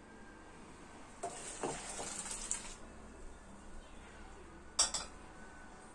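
Kitchen handling sounds: a scraping, rustling stretch of about a second and a half with a few light knocks, then one sharp clink of dishware near the end.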